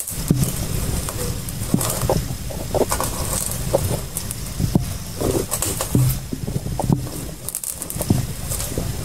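Handling noise on a hand-held phone's microphone: a low rumble with scattered light knocks and rustles as a cardboard carton pot of soil is turned in the hand.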